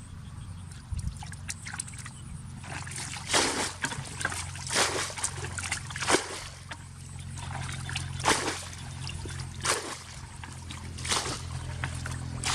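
Water splashing and sloshing in a regular rhythm, a splash about every second and a half, over a steady low hum.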